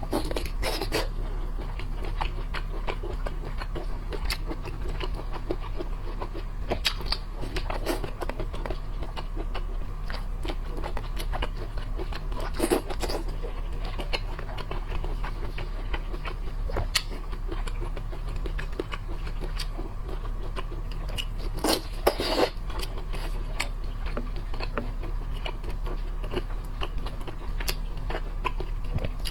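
Close-up eating sounds of a person chewing seafood: irregular crunching, clicking and scraping, with a few louder cracks around the middle and about two-thirds of the way in, over a steady low hum.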